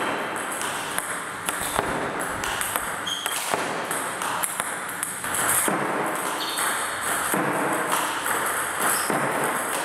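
Table tennis ball struck by a bat and bouncing on the table in a run of forehand loops against backspin: a series of sharp clicks and pings, over background music.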